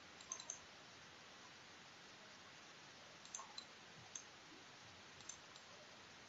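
Faint computer mouse button clicks: two near the start and a few more from about three seconds in, over a steady low hiss.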